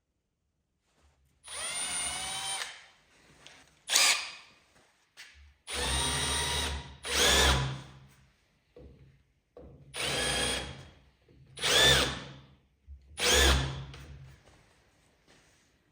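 Power drill run in about seven short start-stop bursts, in loose pairs, its motor whine rising and falling in pitch with each burst.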